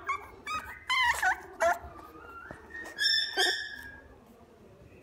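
Boston Terrier puppy whimpering and yipping: a string of short, high, wavering calls, then a louder, longer whine about three seconds in.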